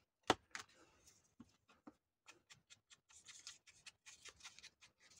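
Tim Holtz Distress ink pad rubbed and dabbed along the edges of a small paper ticket to age it: quick, soft, scratchy strokes in the second half. A sharp click comes about a third of a second in.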